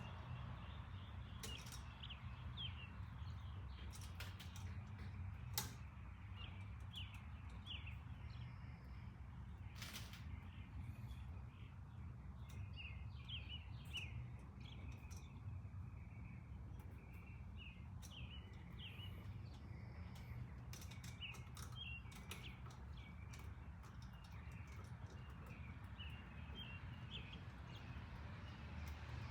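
Small birds chirping faintly and repeatedly over a steady low rumble, with a few sharp clicks now and then.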